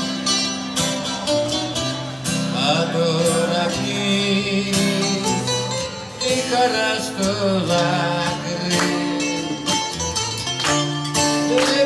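Greek song with plucked string instruments and a singer, playing steadily.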